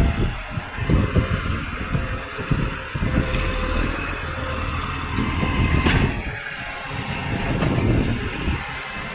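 Garbage truck's engine running, uneven and pulsing, on a truck with an exhaust leak.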